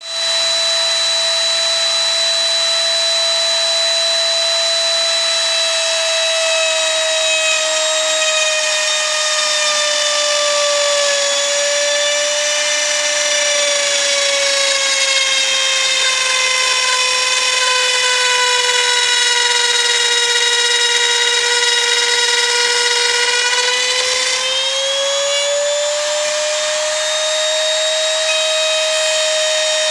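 Small CNC machine's spindle motor running with a steady high whine; its pitch sinks slowly through the middle and climbs back again near the end.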